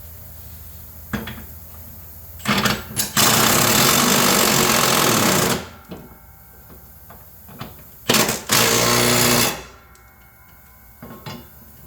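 Impact wrench hammering in bursts on a mower-deck fastener: two short blips, a run of about two and a half seconds, then after a pause a blip and a run of about a second.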